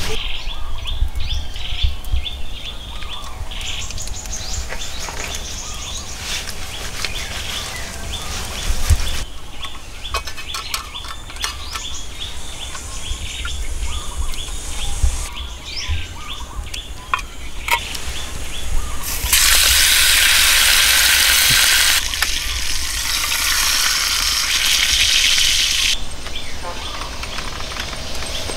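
Birds chirping while raw meat is handled and cut on a wooden chopping board. About twenty seconds in, a loud, steady sizzle starts, which fits meat frying in a hot pan over wood embers. It drops to a softer sizzle a few seconds later.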